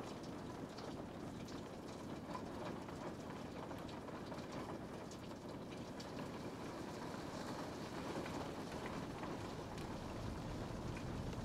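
Steady rain, an even hiss with scattered drop ticks. A low rumble builds near the end.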